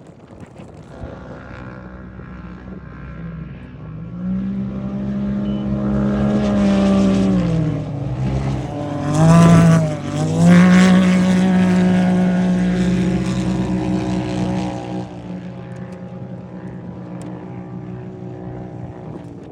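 A race UTV's engine approaches, runs past at high revs and fades away. At its loudest the revs dip briefly and climb again, as the throttle comes off and back on.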